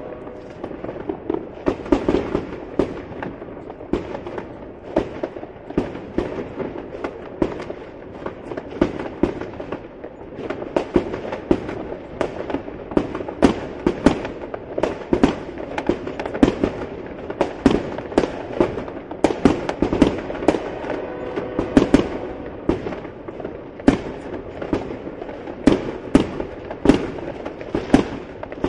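Fireworks going off in a dense, irregular barrage of sharp bangs, several a second, over a continuous background din.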